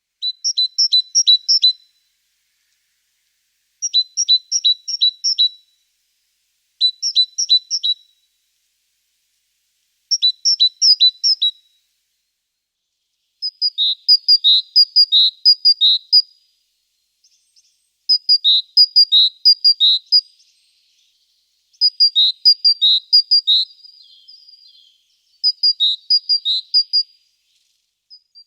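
A small songbird singing short phrases of rapid, repeated high two-part notes, with pauses between them. The phrases come faster and closer together in the second half.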